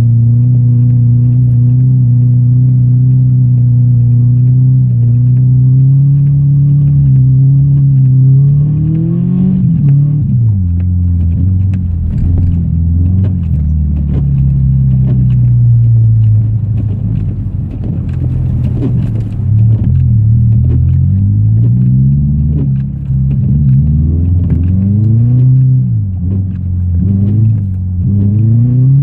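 Subaru Forester's flat-four engine running at a steady speed for about eight seconds, then revving up and falling back again several times, as the car is drifted in snow.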